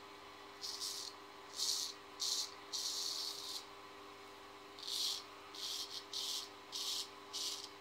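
Straight razor scraping through lather and stubble on the cheek in short strokes, about nine of them in quick, uneven succession.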